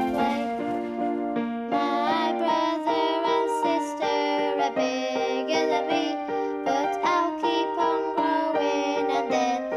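Children's television theme tune with a steady beat.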